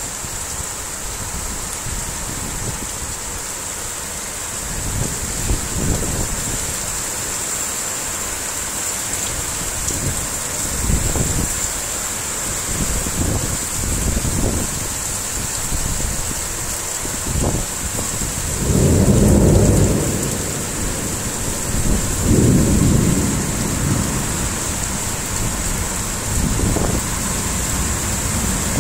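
Heavy rain pouring steadily, a constant hiss, with low rumbles that swell and fade every few seconds; the strongest come about nineteen and twenty-two seconds in.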